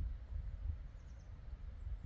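Quiet outdoor ambience: a low, uneven rumble with a few faint, high bird chirps about a second in.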